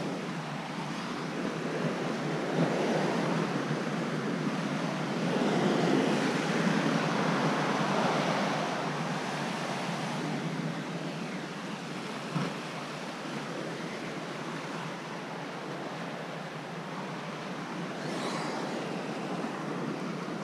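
Ocean surf washing against the rocks at the foot of a sea cliff, heard from above with wind on the microphone; the rush swells louder for a few seconds near the middle, then eases.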